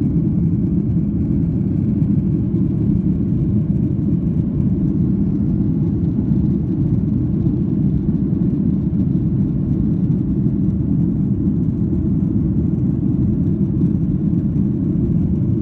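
Steady low rumble of an airliner's jet engines and rushing air, heard inside the cabin as the plane climbs out after takeoff.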